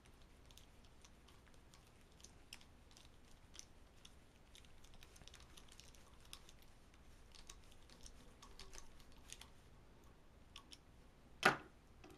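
Faint, irregular small clicks of a hex driver turning the machine screws back into a Synapse blow-off valve's metal body, with gloved hands handling the valve, and one louder sharp click near the end.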